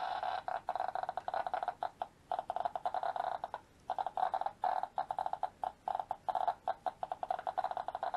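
NE RM5 ratemeter's loudspeaker sounding the counts from a Bicron G2LE scintillation probe. A near-continuous tone breaks up about half a second in into a rapid, irregular stutter of beeps, each beep a detected radiation count, as the count rate drops.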